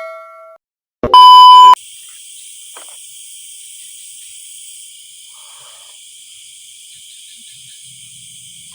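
A short, very loud electronic beep about a second in, then a steady high chirring of night insects such as crickets in the forest.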